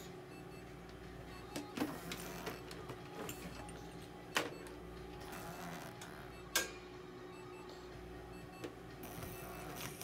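A steady electrical hum from running equipment, with three short, sharp clicks spread through it.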